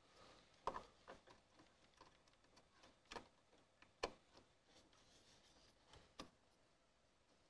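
A handful of light clicks and taps of an M.2 SSD and other small parts being handled and fitted inside a desktop PC case, the sharpest about four seconds in, over near-silent room tone.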